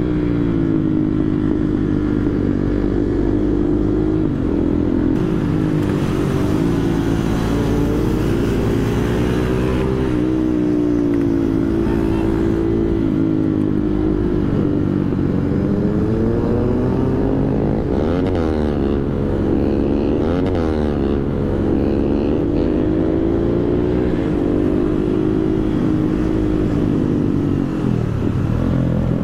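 Single-cylinder engine of a KTM Duke 390 heard from the rider's seat while riding, its pitch rising and falling with throttle and gear changes. Wind rushes steadily over the microphone.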